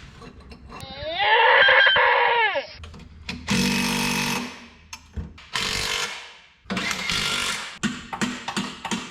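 Reciprocating saw cutting through steel exhaust pipe in bursts: the motor first winds up and back down over about two seconds, then runs in three shorter bursts.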